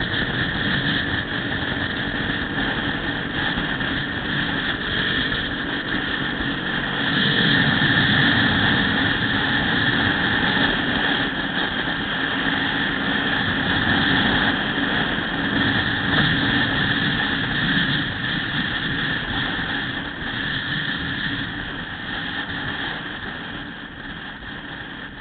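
Motorcycle riding noise at highway speed: wind rushing over the bike-mounted camera's microphone mixed with engine and tyre noise. It gets louder about seven seconds in and eases off near the end.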